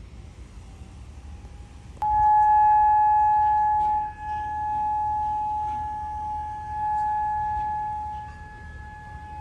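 Outdoor tornado warning siren sounding a steady alert tone. It comes on abruptly and loud about two seconds in, after a fainter steady tone, then holds one pitch while swelling and fading in loudness.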